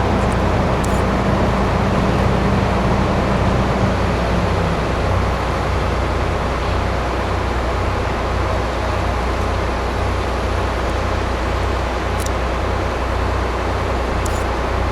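Steady hum and rumble of an electric train at a station platform, with a low tone fading out about four seconds in.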